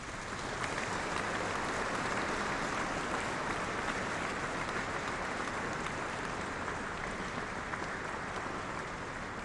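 Audience applauding steadily, a dense clatter of many hands that swells in at the start and eases off slightly toward the end.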